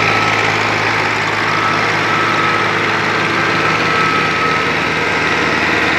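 Diesel engines of a Digitrac tractor and a Swaraj 855 tractor running under load, chained together and pulling against each other. The engine note holds steady, with no drop in revs.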